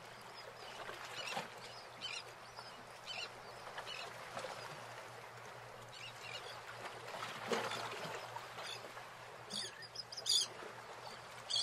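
Faint outdoor ambience: a steady wash of noise with short bird calls coming in every second or so.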